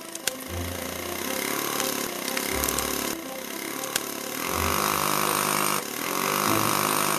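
Cartoon sound effect of an engine running, with a loud buzzing, grinding tool noise in two stretches in the second half.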